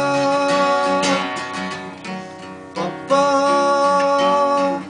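Acoustic guitar strummed while a man sings long held 'ba-ba' notes. The voice drops out in the middle for about two seconds, leaving the guitar alone, then comes back for another held 'ba-ba'.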